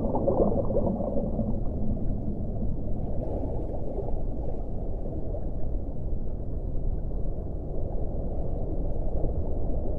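Underwater ocean ambience: a deep, muffled rumble of moving water, with a faint low tone that fades out about two seconds in.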